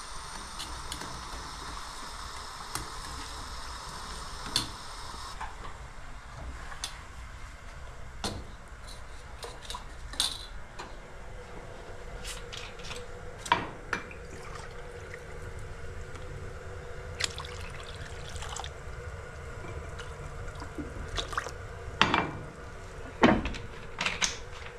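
Kitchen work at a counter: scattered clinks and knocks of a steel bowl, a glass jug and utensils, with water being poured. A steady hiss stops about five seconds in, and the sharpest knocks come near the end.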